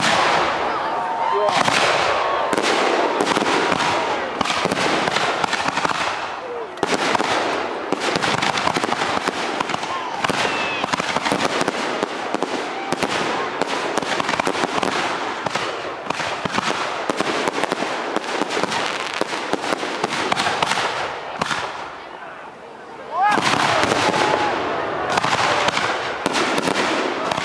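Fireworks display: shells bursting and crackling in a dense, nearly continuous stream. There is a short lull about 22 seconds in, then it comes back suddenly and loud.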